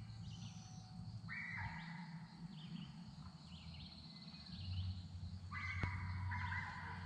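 Outdoor ambience of scattered bird chirps, with two longer animal calls of about a second each, one early and one near the end, over a faint steady low hum.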